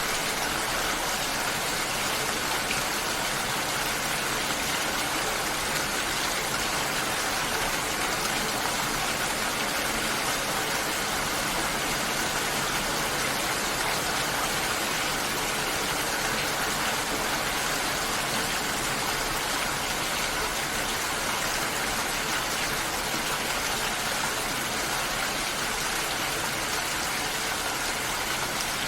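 Steady rain falling, an even hiss that holds at one level throughout with no breaks or single louder drops.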